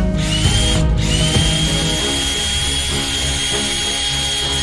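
Cordless drill running: a short burst near the start, then a steady run with an even, high motor whine from about a second in.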